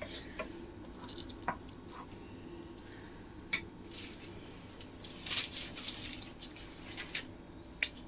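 Kitchen handling sounds: scattered clinks and clicks with short crinkly rustles as dough pinwheels are set out on a foil-lined baking tray. The sharpest clicks come about three and a half seconds in and again twice near the end.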